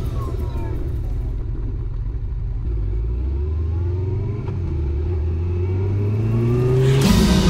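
Motorcycle engine heard from the rider's onboard camera, running steadily and then accelerating, its pitch rising over the last few seconds.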